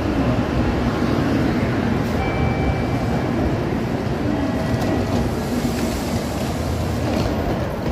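Shinkansen bullet train moving off along the platform close by: a steady rushing run of the cars going past, with a few brief thin whines.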